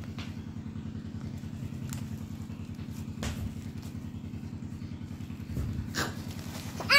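Steady low mechanical hum with a fast, even pulse, as from a small motor running, with a couple of faint taps about three and six seconds in.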